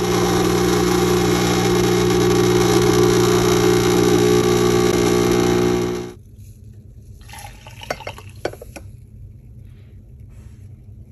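Nespresso capsule espresso machine's pump running steadily with a loud hum while it brews an espresso shot, stopping abruptly about six seconds in. A few light knocks follow a couple of seconds later.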